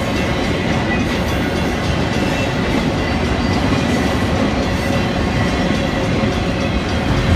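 Freight train of autorack cars rolling past at close range: steady, loud wheel-on-rail noise with a faint high steady ring from the wheels.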